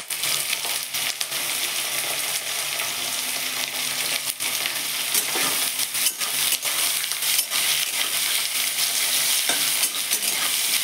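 Carrot and beetroot strips sizzling in hot oil in a metal kadhai, with the scattered clicks and scrapes of a spatula stirring them against the pan.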